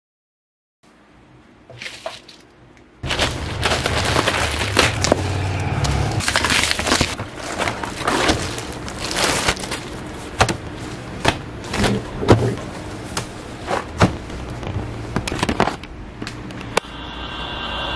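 A cardboard box being opened and a shiny plastic sauna suit being handled, with dense crinkling and rustling and many sharp clicks over a steady low hum. Music comes in about a second before the end.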